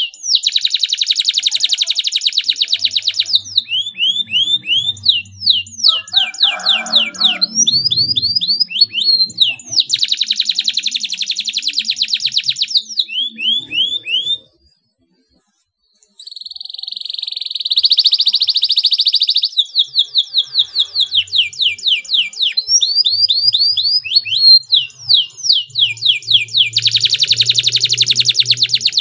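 Domestic canary singing: very fast, tight rolling trills alternate with runs of quick sweeping whistled notes. The song breaks off for about a second and a half halfway through, then resumes.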